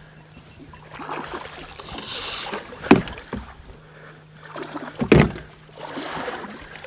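Water sloshing and splashing against a fishing kayak, with two sharp knocks on the hull about three and five seconds in, over a steady low hum.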